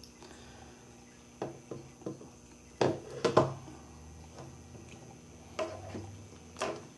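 Scattered light clicks and taps of small tools and phone parts being handled, a few seconds apart, with a quick cluster of them about three seconds in, as an iPhone 5 is opened up again.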